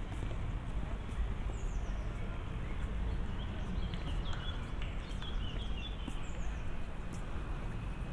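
Outdoor park-edge ambience: a steady low rumble of distant traffic, with sharp clicks every half second or so and a few short bird chirps.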